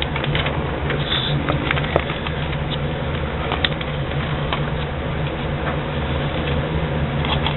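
Pages of a thick paper catalog being flipped and turned by hand, with scattered short rustles and crackles of paper. A steady low hum runs underneath.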